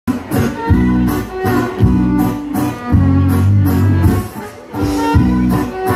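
Live folk band playing: fiddle over rhythmic guitar chords, with a driving beat.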